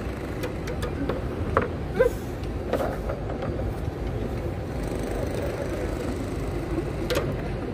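Foosball table in play: a handful of sharp clacks as the plastic figures strike the ball and the ball knocks about the table, over a steady low rumble.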